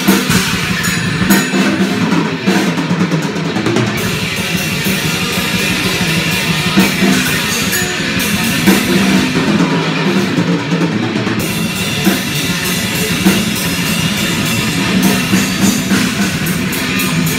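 Live drum kit and electric guitar playing rock music together, loud and continuous, with fast, steady drumming and crashing cymbals.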